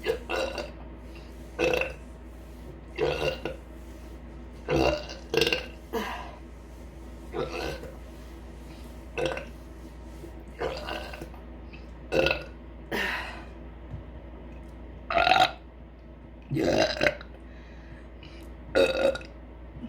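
A woman burping over and over, about fifteen short deliberate burps roughly one every second or so, some coming in quick pairs. The loudest come about two-thirds of the way through.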